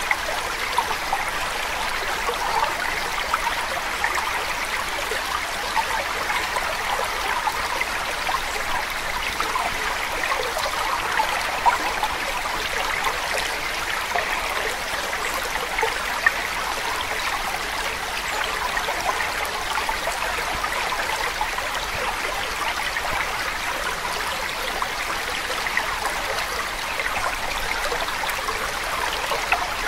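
Steady sound of a running, babbling stream, unbroken throughout, serving as the masking background of a subliminal affirmation track.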